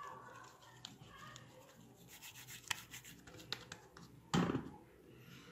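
Oiled hands squeezing and rubbing soft bread dough, with scattered small clicks, and a thump about four seconds in as a dough ball is set down on an oiled metal tray.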